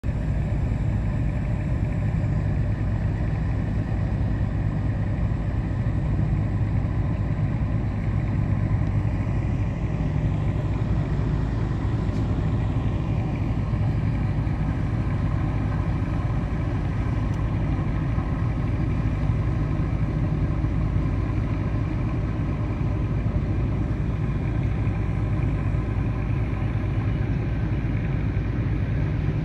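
Marine diesel engines running with a steady low drone as a large cargo ship is moved along the quay by tug.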